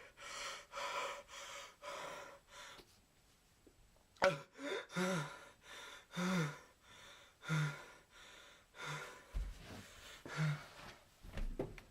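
A person crying in gasping sobs: a run of sharp, breathy gasps, then short sobbing cries about once a second.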